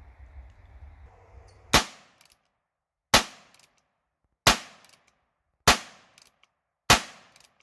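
Five .22 LR shots from a Heritage Rough Rider single-action revolver carbine, fired at an even pace about a second and a quarter apart, each a sharp crack with a short ringing tail. A low rumble comes before the first shot, which falls about two seconds in.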